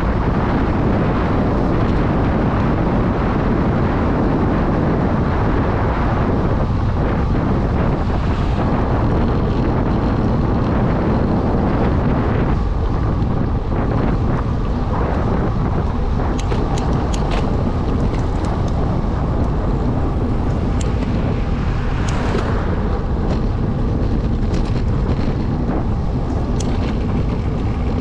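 Steady wind rush on the microphone, with tyre noise from a road bike descending at speed. A few short clicks come in the second half.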